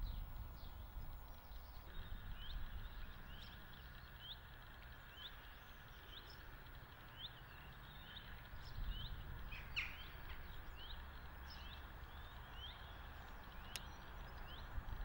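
A small songbird repeating a short upward-sliding chirp every second or so, with a louder call near the middle, over a faint low rumble.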